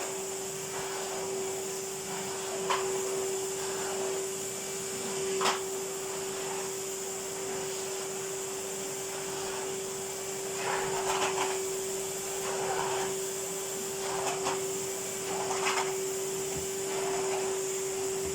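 Numatic Henry cylinder vacuum cleaner running steadily with a constant hum and whine. Its nozzle is worked over a carpet, with a few sharp knocks and short scuffing swishes.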